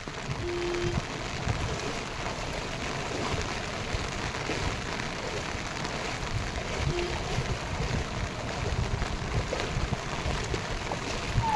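Steady hiss of rain falling on shallow floodwater.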